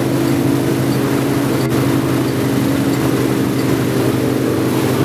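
Centurion wakeboat's engine running steadily at speed, a constant drone under the rush of water and wind.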